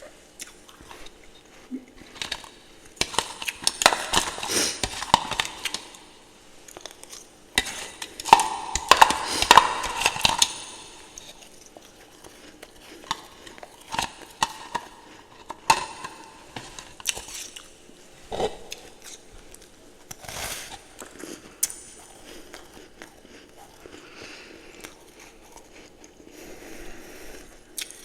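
A person chewing ice and freezer frost close to the microphone. Two long bouts of dense, crackly crunching come first, then slower, scattered crunches.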